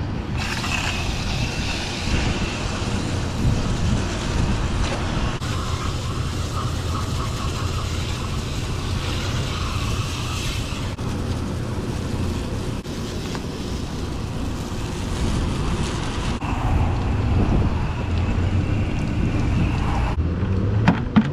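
Hose-end sprayer putting a steady spray of water and coil cleaner through a thick air-conditioner coil. The hiss shifts a few times as the spray moves and cuts off about a second before the end, over a steady low rumble.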